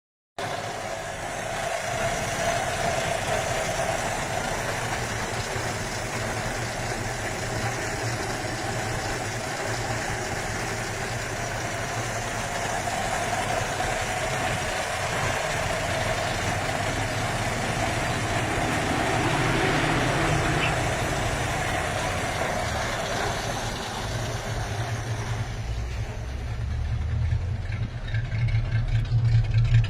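1979 Rambler 06/SX engine and exhaust running steadily at idle. Near the end the low exhaust rumble grows louder and more uneven.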